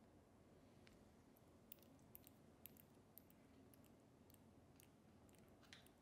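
Faint, irregular wet clicks and smacks from a newborn kitten's mouth as it suckles formula from a syringe and works its lips, over near silence.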